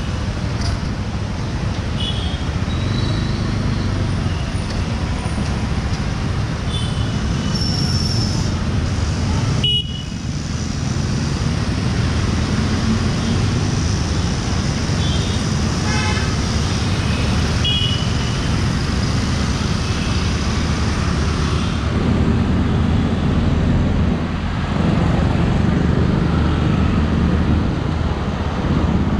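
Busy street traffic: a steady low rumble of scooters, motorcycles and cars, with short vehicle horn toots several times.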